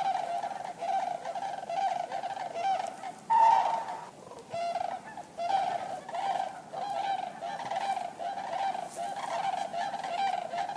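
Common cranes calling, many honking calls in quick succession and overlapping one another. One call stands out louder a little over three seconds in, and there is a brief lull around four seconds.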